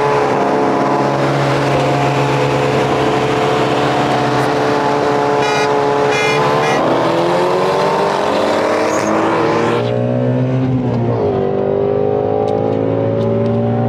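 Car engine pulling hard during a roll race, its pitch stepping at shifts about seven and eleven seconds in and climbing between them. Heavy wind and road rush over it drops away suddenly about ten seconds in.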